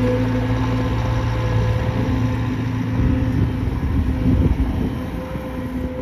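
Bobcat T66 compact track loader's diesel engine running steadily as the machine drives and turns on its rubber tracks over gravel, a little louder around four seconds in, then easing.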